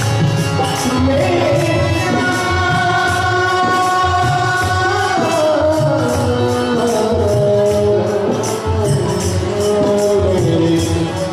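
Devotional song sung by voices over a steady beat of jingling percussion and drum strokes, with long held, sliding sung notes.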